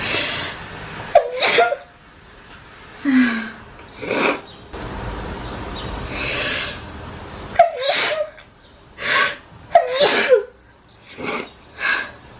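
A series of human sneezes, several with breathy build-up breaths between them. The three sharpest come about a second in, at about seven and a half seconds and near ten seconds.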